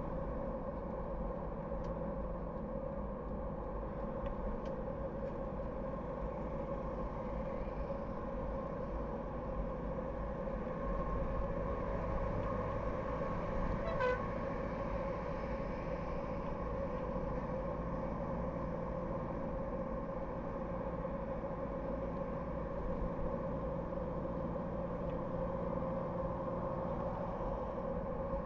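Car driving on a road: steady road and engine noise with a constant hum. A short car-horn toot sounds about halfway through.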